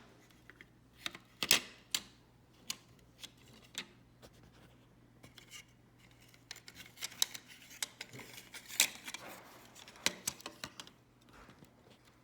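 Irregular sharp clicks, taps and short scrapes of small hard objects being handled, loudest about a second and a half in and again near nine seconds in, over a faint steady hum.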